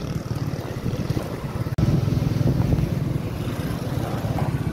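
Steady low rumble of outdoor street noise with wind on the microphone, jumping louder at a cut about two seconds in.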